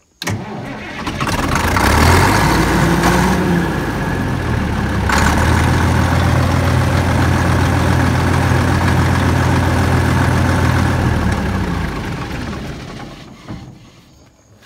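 Cat D6B bulldozer's diesel engine being turned over from the dash. The sound starts abruptly, runs steadily for about ten seconds, then winds down and stops near the end.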